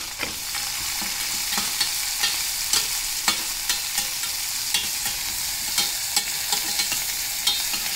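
Sliced shallots, curry leaves and crushed garlic frying in hot oil in a stainless steel pan with a steady sizzle, while a perforated steel spatula stirs them, scraping and clicking against the pan at irregular moments.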